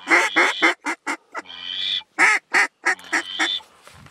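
Duck call blown hard in a rapid series of mallard-hen quacks, to bring circling ducks in. The quacks come several a second, with a longer drawn note about a second and a half in, and stop about three and a half seconds in.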